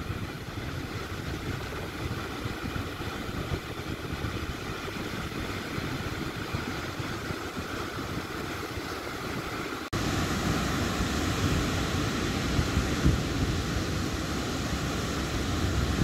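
Sea surf breaking and washing up a beach: a steady rush of waves, with wind on the microphone. About ten seconds in it cuts abruptly to a louder, closer stretch of surf.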